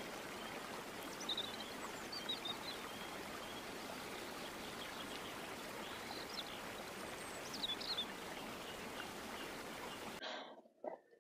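Stream rushing over rocks, with a few short bird chirps; it cuts off suddenly near the end.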